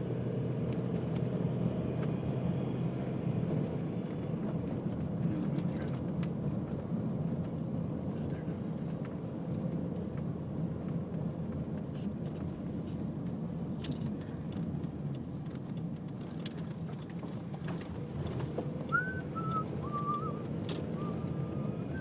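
Car driving, heard from inside the cabin: steady engine hum and road noise with scattered small clicks and rattles. A few short high chirps come near the end.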